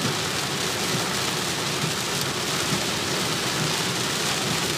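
Heavy rain pouring steadily onto a moving car, heard from inside the cabin as an even hiss, with the car's tyres and road noise mixed in beneath.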